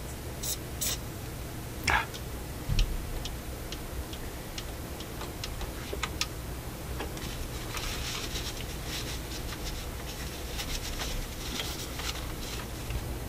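A few short hisses of aerosol spray into the Dual 1228 turntable's mechanism and a thump, then a long run of irregular small metallic clicks and ticks, busiest in the second half, as the stiff linkages under the chassis are worked back and forth by hand to free a tight shaft.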